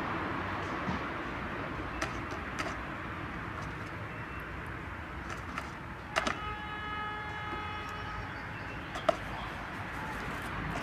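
Rook pecking at a plastic takeout tub: a few sharp clicks of beak on plastic over steady traffic noise. Just past the middle, a steady pitched tone lasts about a second and a half.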